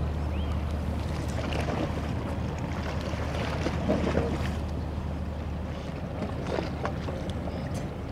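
Steady low drone of a passing general cargo ship's engine heard across the river, over wind and water noise.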